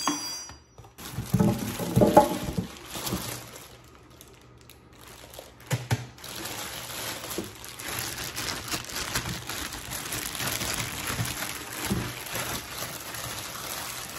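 Clear plastic packaging bags crinkling and rustling as wrapped parts are handled and unwrapped. A few louder handling knocks and rustles come about a second or two in, and a steady run of crinkling lasts from about the middle onward.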